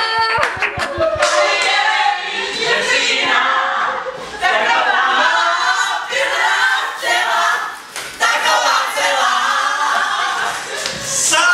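A group of voices singing together in phrases, with a few hand claps in the first second.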